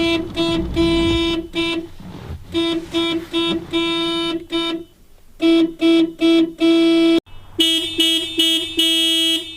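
Car horn sounding in a string of short and long honks at one steady pitch: the car alarm going off after a door was opened.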